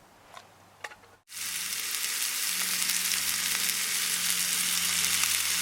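Burger patties sizzling loudly as they fry, a steady crackling hiss that starts abruptly about a second in after a few faint clicks.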